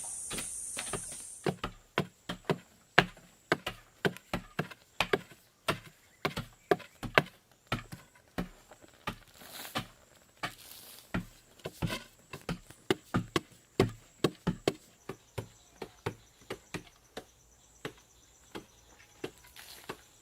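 Repeated sharp chopping strikes into wood, irregular at about two to three a second. A steady high hiss stops about a second and a half in.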